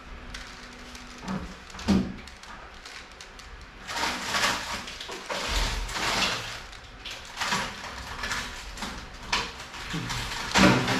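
Plastic 3x3 Rubik's cube being turned by hand: a couple of sharp clicks, then repeated short scraping, sliding swishes as the layers are twisted.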